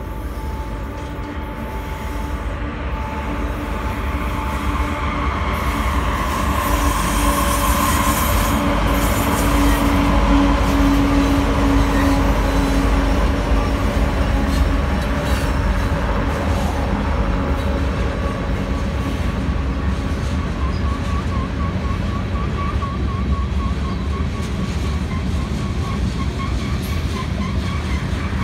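Freight train with Norfolk Southern and BNSF diesel locomotives in the lead, approaching and passing. The engines are a steady low rumble that grows louder to about ten seconds in. After them come loaded covered hopper cars rolling by, with a faint wavering wheel squeal in the last several seconds.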